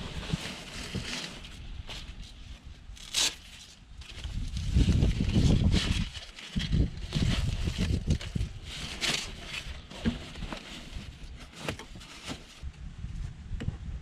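Rustling and scuffing of fabric as a camo seat cover is pulled and worked onto a truck's rear seat, with a few sharp clicks and knocks and low rumbling handling noise that swells about five seconds in.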